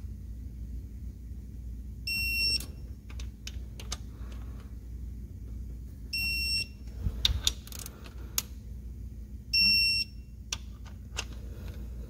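Snap-on digital torque wrench beeping three times, each beep about half a second long, as it reaches its set 11 ft-lb on successive camshaft bearing-cap bolts. Sharp ratchet clicks come between the beeps.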